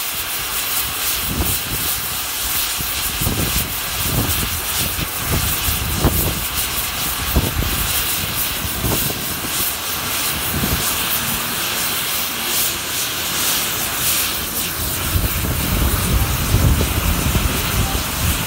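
Steam locomotive pulling a train of coaches out slowly: steam hiss with slow, spaced exhaust beats, over heavy wind noise on a phone microphone. A low rumble grows louder near the end as the coaches roll past.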